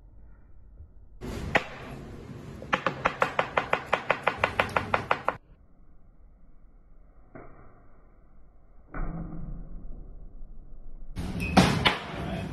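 Knife chopping fast on a cutting board: a single knock, then an even run of strokes at about seven a second for two to three seconds. A louder single knife strike comes near the end.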